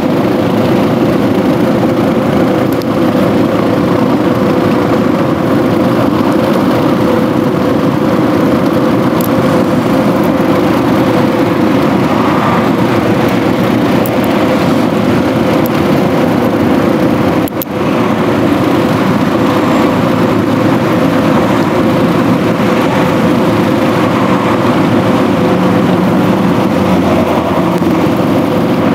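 A steady machine drone with a constant hum, dipping briefly about two-thirds of the way through.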